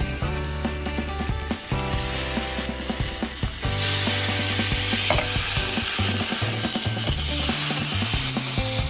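A thick slab of bacon sizzling and frying on a small thick iron griddle. The sizzle grows louder and brighter about four seconds in.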